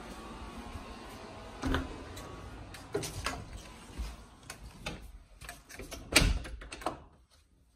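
A door being handled, opened and shut: a few sharp knocks and clatters, the loudest thump about six seconds in, with a faint background fading out in the first few seconds.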